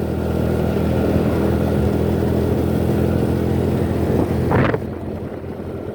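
Steady engine drone and road noise of traffic heard from a moving motorcycle. About four and a half seconds in there is a short rush of noise, after which the sound drops a little quieter.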